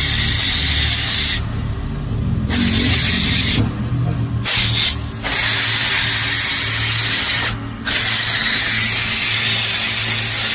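Compressed-air blow gun hissing from a compressor hose, its blast stopping briefly four times as the trigger is let go and squeezed again.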